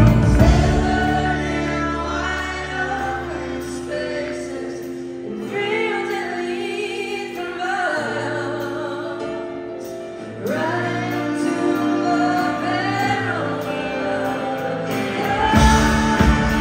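Live rock band playing with singing over held electric guitar chords; about five seconds in the lowest notes drop away, leaving voices and guitars, and the full band comes back in louder near the end.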